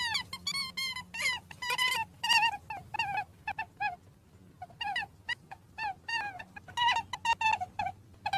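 Rabbits squeaking: a rapid series of short, high, wavering squeaks, several a second, with a brief pause about four seconds in.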